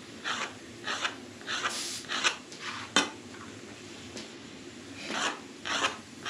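Kitchen knife cutting rolled-out dough into noodle strips on a board: short rasping strokes about every half-second, with a pause in the middle and a sharp click about three seconds in.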